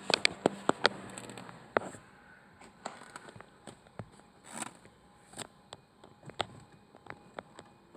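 Irregular sharp clicks from a car's indicators, several close together in the first second and then one every half second or so.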